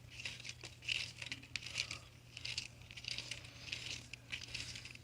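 Irregular rustling, scratching and small clicks of hands handling the plastic-covered wire of a Wheelbrightz LED light strip while fitting it to a bicycle, over a faint steady low hum.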